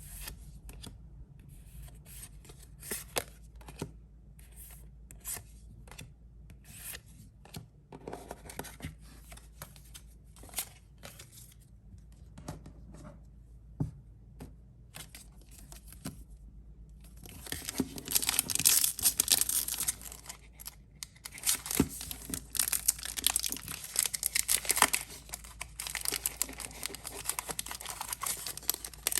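Pokémon card packaging being opened by hand: scattered clicks and rustles, then, from a little past halfway, a long stretch of loud crinkling and tearing of wrapping.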